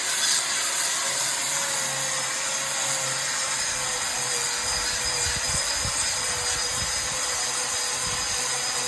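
Electric power tool running steadily at high speed, its abrasive working against laterite stone to polish it; the motor holds a constant high whine over a steady grinding hiss.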